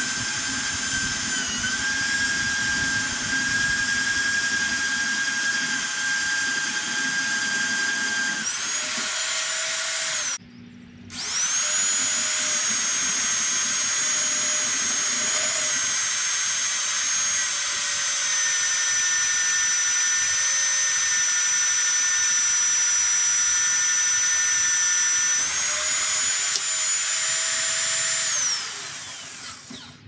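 Magnetic drill press with an annular cutter, drilling through a steel beam: a steady motor whine under load. The whine rises in pitch and stops sharply about ten seconds in. A second later it spins up again, runs steadily, rises in pitch once more near the end, then winds down.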